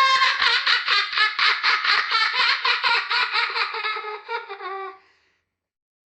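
A child laughing in a long run of quick, high-pitched 'ha-ha' pulses, about four or five a second, that tails off and stops about five seconds in.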